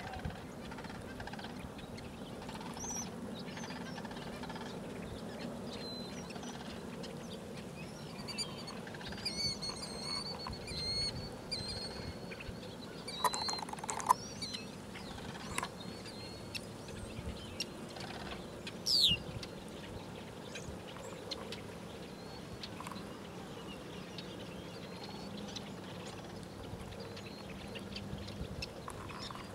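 Sandhill cranes and other birds calling in scattered bursts over a steady low background hum, with thin high whistles and one sharp falling whistle about two-thirds of the way in.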